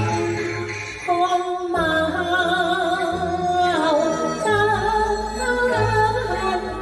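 Chinese opera singing: a voice holding long, wavering, ornamented notes over instrumental accompaniment, with a short break in the vocal line about a second in.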